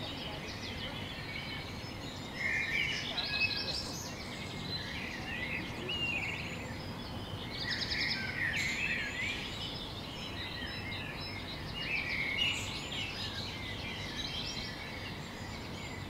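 Small songbirds singing, with repeated phrases of quick chirps and trills every few seconds over a steady low background hiss.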